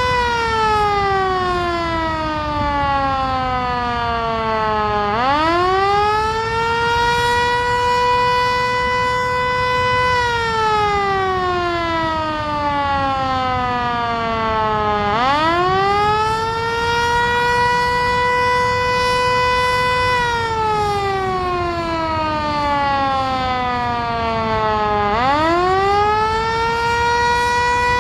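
Darley Champion outdoor warning siren sounding a wail test signal. Its pitch climbs in about two seconds, holds steady for about three, then slides down over about five seconds, and the cycle repeats about every ten seconds.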